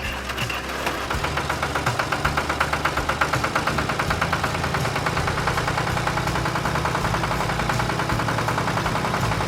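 Tractor engine running with a fast, even chugging pulse and a low drone, building up over the first second and then holding steady.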